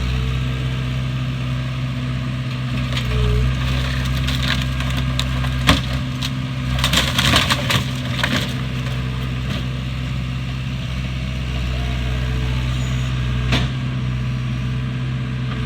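A heavy machine's engine running steadily, with sharp cracks and knocks of breaking wood and debris about six seconds in, a burst of them about seven to eight seconds in, and one more near the end.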